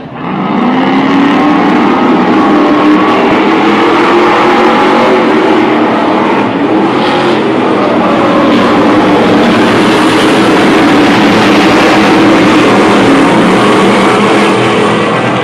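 A field of Stadium Super Trucks' V8 engines running hard together, several engine notes overlapping and rising as the pack accelerates, loud and steady throughout.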